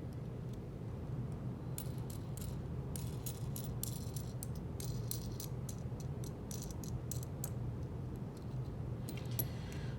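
Small metal clicks and light rattling as wing nuts are spun along the threads of steel carriage bolts and the loose bolts clink together. The clicks come in clusters, thickest in the middle stretch, over a steady low hum.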